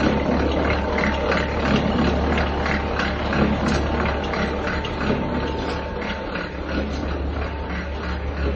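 Oil expeller (screw press) running under load, its belt-driven pulley and motor giving a steady low hum with a thin steady whine and a regular clatter about twice a second.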